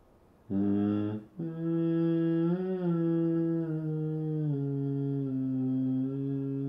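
A person humming a slow wordless tune in long held notes: one short note, then a long phrase whose pitch steps down twice in its second half.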